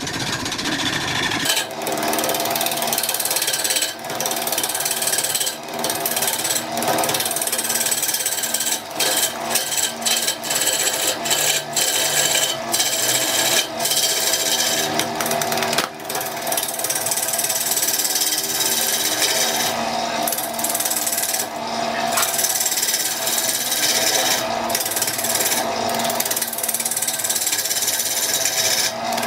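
A power tool running steadily on wood, a motor hum under a dense cutting noise that drops off briefly many times.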